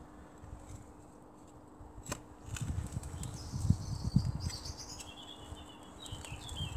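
Long-handled lawn edger levering and cutting turf and soil: a run of dull thuds and scrapes in the middle, with a few sharp clicks. A bird chirps in the background in the second half.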